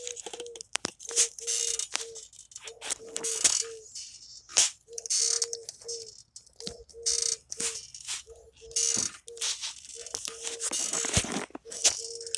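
Lego Technic plastic beams and pins clicking and rattling as they are handled and pressed together, in irregular sharp clicks every half second or so. A steady hum-like tone keeps cutting in and out underneath.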